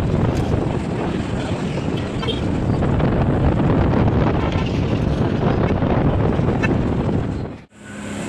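Loud wind buffeting the microphone on a moving motorized two-wheeler, with road and engine noise underneath. It cuts off abruptly near the end.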